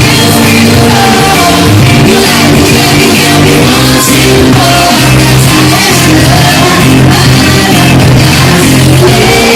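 Live pop music blaring from a festival PA with a singer's voice over a steady bass line, recorded too close to the speakers so the sound is overloaded and near full scale throughout.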